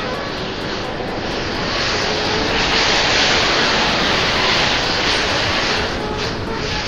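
Thousands of matchsticks burning together in a large flare-up, a loud, steady rushing roar of flame that swells a few seconds in and eases slightly near the end.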